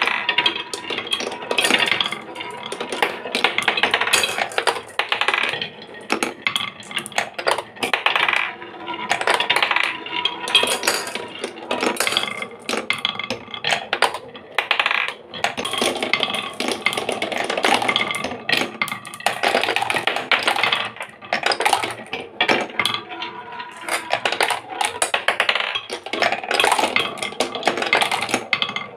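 Marbles rolling down a wooden marble run: a rolling rumble along the wooden spiral and tracks and round a grooved wooden funnel bowl, with a near-steady stream of clicks and clacks as the marbles hit the wood and each other. It swells and fades every few seconds as new marbles set off.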